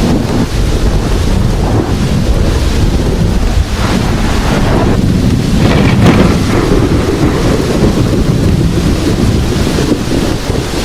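Heavy rain falling steadily, with a deep low rumble underneath that swells around the middle.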